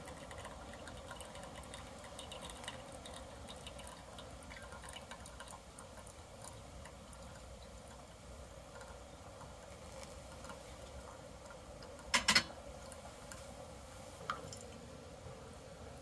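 Hot water poured slowly from a gooseneck kettle onto coffee grounds in a stainless steel paperless pour-over dripper: a faint, steady trickle and patter. About twelve seconds in, two sharp knocks in quick succession stand out as the loudest sound.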